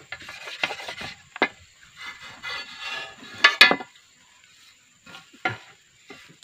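A wet fine whetstone scraping along the steel blade of an egrek, an oil-palm harvesting sickle, in uneven strokes, with a few sharp clacks of stone on metal about three and a half seconds in. After that it goes much quieter, with one light knock.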